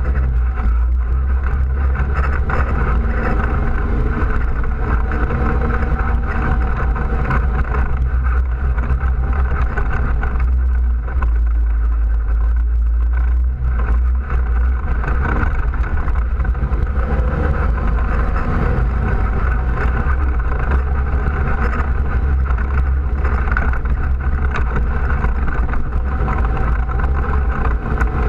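ATV engine running steadily while riding along a dirt trail, heard from a camera mounted on the quad's front: a loud, even low drone with little change in pitch.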